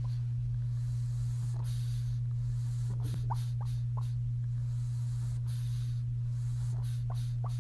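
A steady low hum, level throughout, with a few faint, short high squeaks over it, the clearest about three seconds in and a pair near the end.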